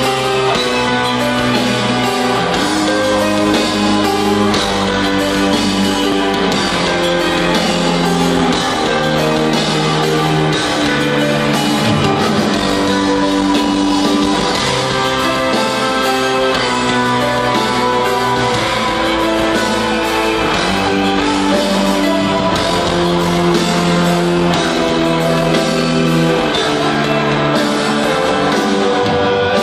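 Heavy metal band playing live in a large arena, heard from within the crowd: long held chords moving step by step over drums.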